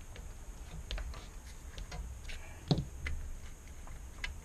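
Light, irregular clicks and taps of a thin metal tool and the monitor's sheet-metal chassis being worked to free a stuck clip. One sharper click comes a little past halfway.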